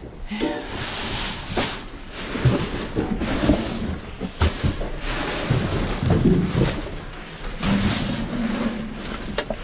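Plastic trash bags, plastic wrap and cardboard rustling and crinkling as trash in a dumpster is rummaged through by hand, with scattered clicks and a few dull knocks.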